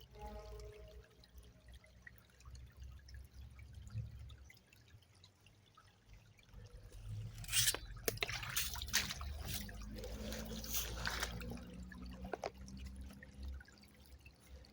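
River water trickling and dripping over a low steady rumble, with about five seconds of louder, sharper splashing starting about halfway through.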